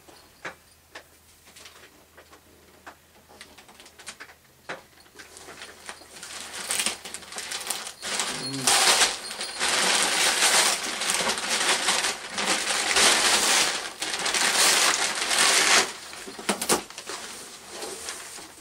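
Wrapping paper being torn and crumpled off a large gift box: a few light clicks and rustles at first, then several seconds of loud, continuous crinkling and tearing that eases to quieter rustling near the end.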